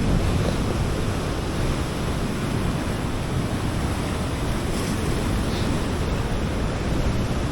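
Steady wash of sea waves on the shore, with wind noise on the microphone.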